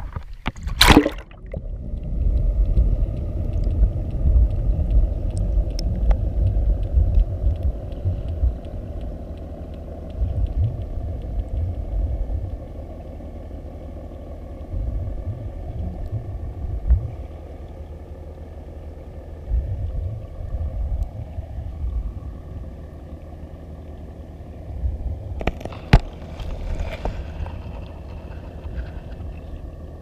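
Underwater sound picked up through a GoPro's waterproof housing as it is lowered into the sea: a splash as it goes under about a second in, then a muffled low rumble of water moving past the housing that swells and eases, with a faint steady hum above it. A few sharp knocks come near the end as the camera nears the bottom.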